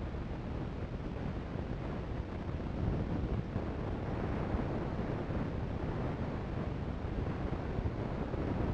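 Steady rumbling background noise, strongest in the low end, with no distinct events.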